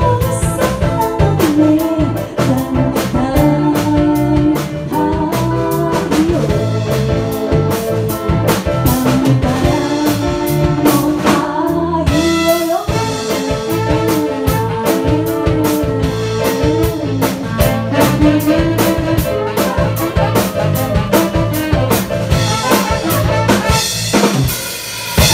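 Small live band playing a song: drum kit keeping a steady beat under electronic keyboard, with trumpet and saxophone carrying long held melody notes. A drum fill with cymbals comes near the end.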